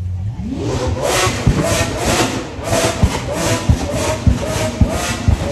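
A sports car's engine revving up hard. It then stutters at high revs in a quick rhythm of surges, two to three a second, with sharp pops and bangs from the exhaust.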